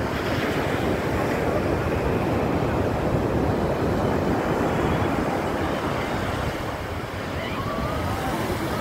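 Ocean surf breaking on a sandy beach: a steady rushing of waves with wind buffeting the microphone. Faint voices come in near the end.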